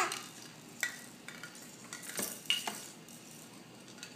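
Hanging plastic toys on a baby bouncer's toy bar being grabbed and knocked: a few short, irregular clicks and clinks, the loudest right at the start.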